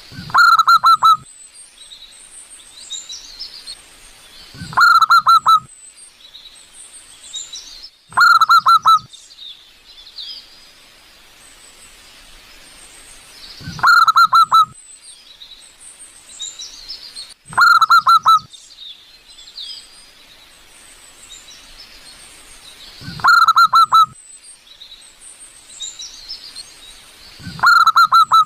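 Zebra dove giving its rapid cooing call, about a second long and repeated every four to five seconds, seven times in all. Smaller birds chirp high and thin in the background.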